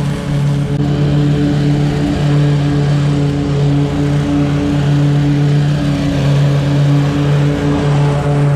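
Scag V-Ride stand-on mower's engine running steadily, with wind buffeting the microphone.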